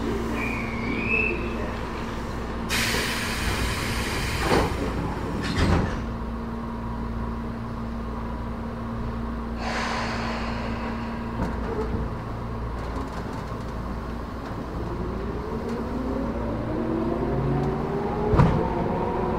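Inside a standing Tobu 10030 series electric train: a steady equipment hum, two bursts of air hissing and a couple of thuds, then, from about three-quarters of the way in, the rising whine of its chopper-controlled traction motors as the train starts to pull away, with a sharp knock near the end.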